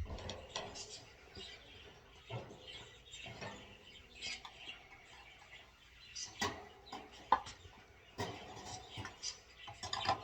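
Bird cage parts being handled and fitted together: irregular clinks, knocks and rattles, busier in the second half.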